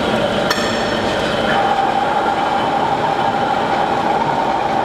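Centre lathe running under power while a grooving tool cuts into a spinning mild steel shaft: a steady machine noise with a steady tone that sets in about a second in, after a sharp click.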